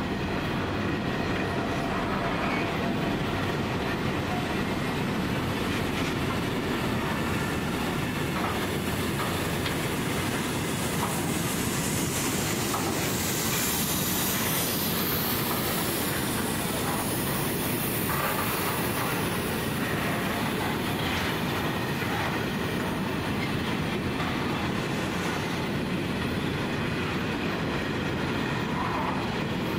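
Empty grain hopper wagons rolling slowly past: a steady rumble of wheels on the rails with occasional faint clicks.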